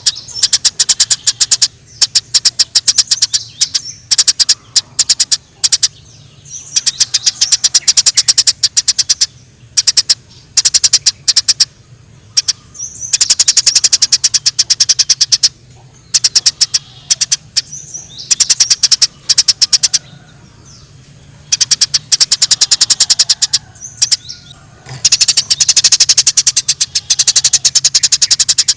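Eurasian tree sparrows chirping in fast, dense strings of sharp high chirps, coming in bouts of a few seconds with short pauses between: the excited calling of sparrows squabbling.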